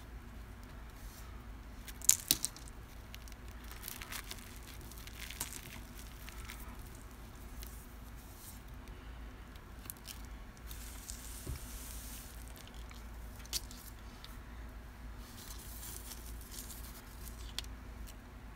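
Cornstarch being crunched and crumbled: irregular crackling crunches with fine, sandy crumbling in between, and two sharp, loud crunches about two seconds in.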